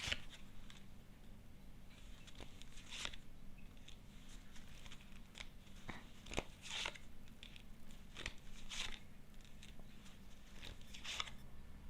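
Cards being handled by hand: faint, irregular soft rustles and light clicks, a handful over several seconds, over a low steady hum.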